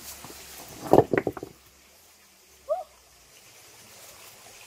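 Stones knocking against each other as a rock is shifted among wet streambed rocks: a quick cluster of sharp knocks about a second in. A short chirp is heard about halfway through.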